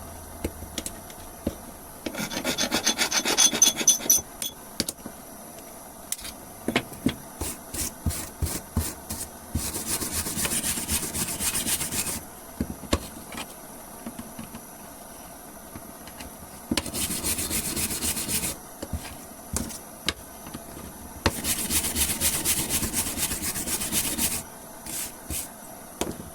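Wire brush scrubbing a steel door hinge in four bursts of quick back-and-forth strokes, with scattered clicks and knocks between them as the hinge is handled. The brushing scours off paint softened and burnt by a blowtorch.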